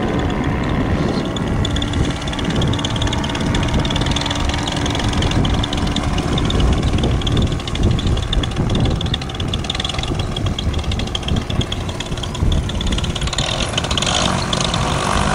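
Paramotor engine idling steadily behind the pilot while gusty wind rumbles on the microphone. Near the end the throttle opens and the engine and propeller rev up in a rising whine for the take-off run.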